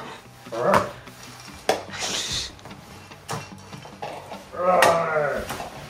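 A person making drawn-out, bleating dinosaur calls: a short one about a second in and a longer, louder one near the end. Light clicks of plastic toy pieces on the floor come in between.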